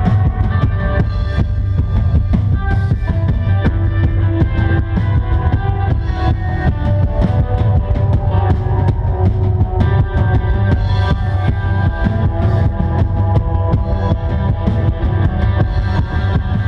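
Live instrumental post-rock band playing: guitars ringing over a busy drum kit with steady bass drum, at a loud, even level.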